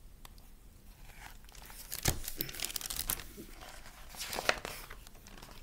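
Paper pages of a picture book being turned and handled: rustling and crinkling in two flurries, about two seconds in and again about four seconds in.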